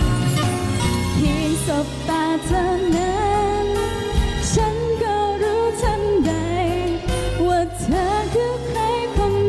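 A woman singing a Thai pop song over backing music, her long held notes wavering with vibrato.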